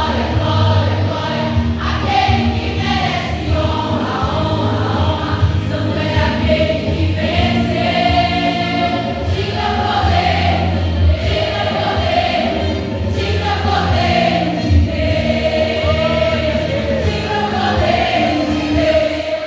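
Congregational choir singing a Portuguese gospel hymn over instrumental accompaniment.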